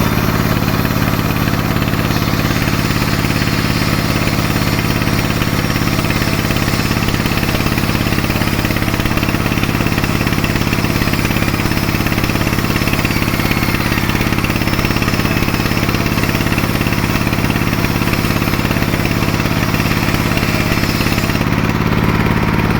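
Sawmill machinery's engine running steadily at a constant speed, with no change in pitch or load.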